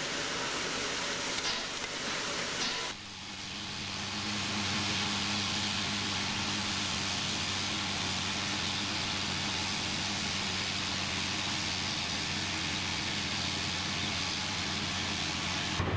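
A steam locomotive's steam-driven air pump working close up for the first three seconds. Then a sudden change to a steady hiss of steam from the standing locomotive, with a low steady hum beneath it.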